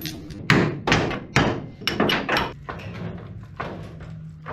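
A run of sharp metallic clanks and knocks, about two a second at first and then sparser, from a ratchet on a long extension working a bed-mount nut under a pickup's bed.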